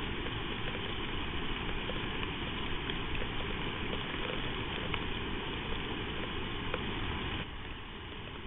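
Steady hiss of heavy rain and wind, with a few faint ticks of drops, dropping a little and changing character about seven and a half seconds in.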